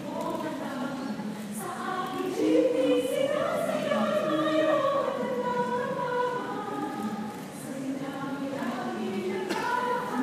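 A mixed group of men's and women's voices singing together as a choir, holding long notes with no beat behind them; one loud sung line swells and falls away between about two and six seconds in.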